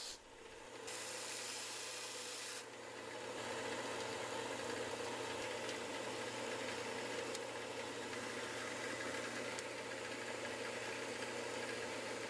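Small belt sander running while a steel knife guard is ground against its narrow belt to shape it: a steady grinding rub, harsher and brighter from about one to two and a half seconds in, then even.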